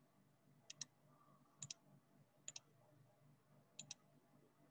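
Faint computer mouse clicks: four press-and-release pairs, roughly a second apart.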